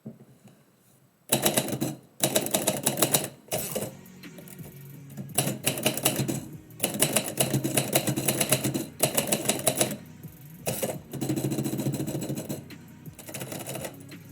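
Typewriter keys being struck in quick runs of typing, starting about a second in and broken by short pauses, as a poem's stanza is typed out. Background music plays underneath.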